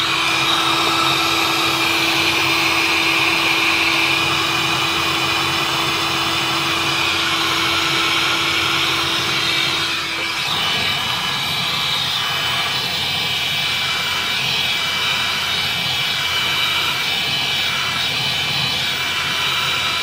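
A Milwaukee heat gun runs steadily, its fan blowing hot air to melt frost and ice off a freezer's evaporator coils. A steady hum in the sound stops about halfway through.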